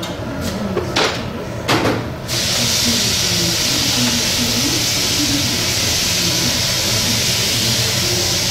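A few light knocks, then about two seconds in a loud, steady hiss starts and holds.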